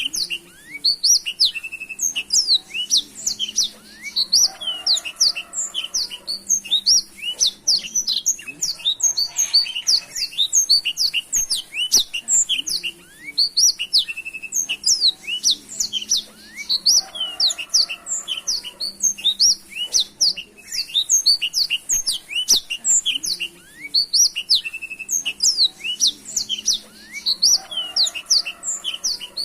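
Black-throated canary (blackthroat) singing nonstop: a long, rapid, unbroken run of high chirps, trills and short whistled notes.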